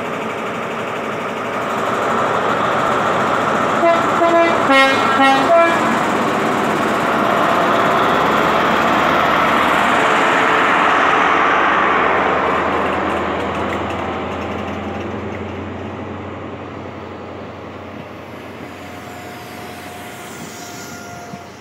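High Speed Train (Class 43 diesel power car) giving a rapid series of short horn toots about four seconds in, then its engine powering up as the train pulls out and passes. The noise swells to a peak and fades steadily as the train draws away.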